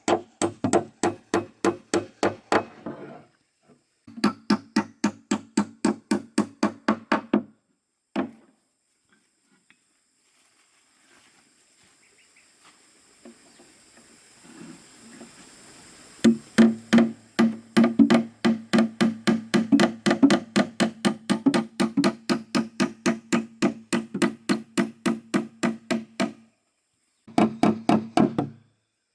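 Hammering on wood in fast, even runs of about three to four blows a second, each blow ringing at the same pitch, with a pause of several seconds in the middle.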